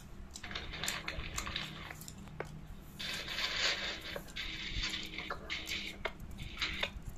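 Scattered clicks and rustling from someone eating fried chicken with his hands, with a longer rustle about three seconds in, over a faint steady hum.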